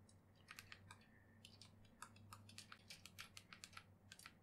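Faint, irregular light clicks and taps from a drawing-tablet pen working on the tablet and pressing its side button, a few every second.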